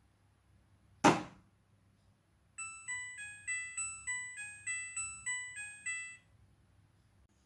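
A single sharp click about a second in, then the front-loading washing machine's control panel plays a short electronic beep tune of about a dozen quick notes.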